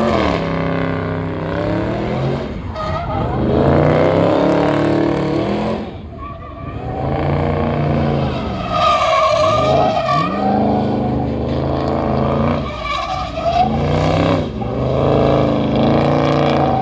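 A car spinning donuts in a burnout: its engine revs up and down over and over while the rear tires spin and skid on the pavement. There is a short lull about six seconds in.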